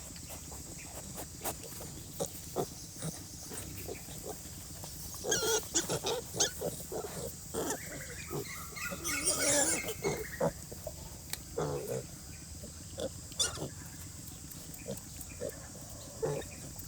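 Pigs grunting in short, scattered sounds, with one longer, wavering squeal about halfway through.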